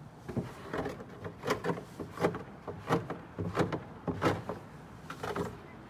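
Hands digging and scooping through deep, fresh snow, making an irregular run of short crunches about two a second.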